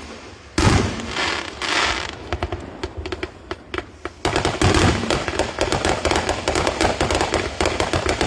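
Aerial fireworks going off: a loud bang about half a second in and another burst around two seconds, then from about four seconds a dense, rapid crackling of many small pops.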